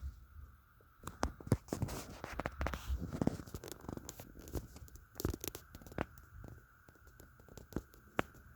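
A quick flurry of knocks, taps and scraping rustles starting about a second in, then scattered clicks and thumps, over a steady faint high-pitched hum.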